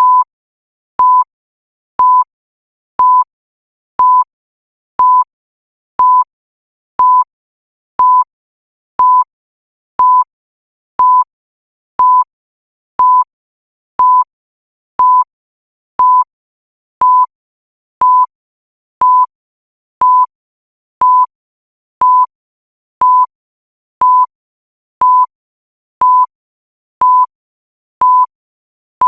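A digital countdown timer beeping once a second, each a short electronic beep at the same mid pitch, marking off the seconds of the countdown.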